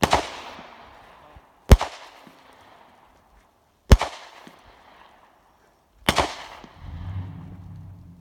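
Four rifle shots about two seconds apart, each with a long echo trailing off. A low rumble follows the last one.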